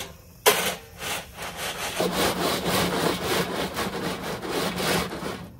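Hand saw cutting through wood, likely firewood for a campfire, in rapid, even back-and-forth strokes. The sawing starts about half a second in and stops near the end.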